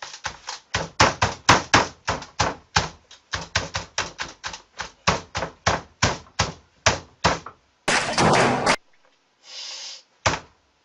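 A computer keyboard being hit over and over by a face, a rapid run of thuds about three or four a second, then a loud noisy burst of just under a second near the end and one last hit.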